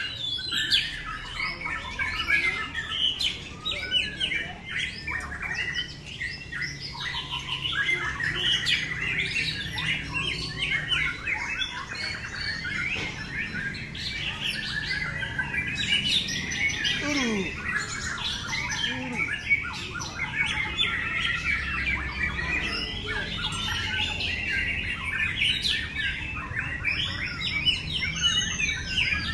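Many caged white-rumped shamas (murai batu) singing at once, a dense, overlapping stream of whistled phrases, chirps and harsh notes with no break.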